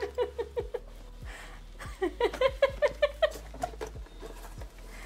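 Laughter in two bursts of quick, repeated 'ha-ha' pulses, the first at the start and the second from about two seconds in, with a few light clicks and taps of handling in between.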